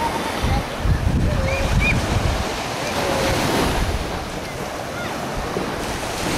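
Small surf washing onto a sandy beach, with wind buffeting the microphone, heaviest in the first half.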